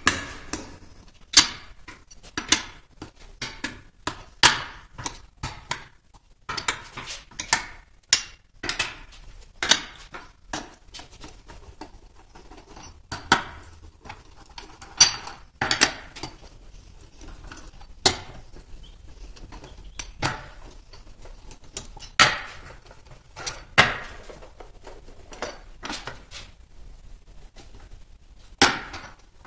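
Irregular sharp metallic clinks and taps of a hand wrench working the 12 mm cover bolts on a Hondamatic transmission case, one every second or two, with the bolts being loosened.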